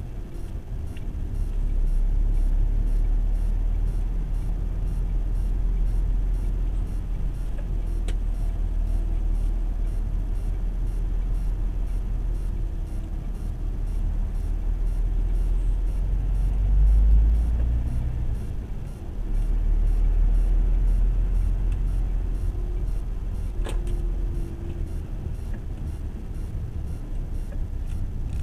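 Lorry's diesel engine and road noise while driving: a steady low rumble that swells briefly about two-thirds of the way through, with two faint ticks.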